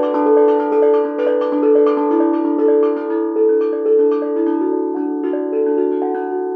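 Small tuned steel drum played with two felt mallets: a steady run of ringing, clear notes, about three a second, each one sustaining and overlapping the next.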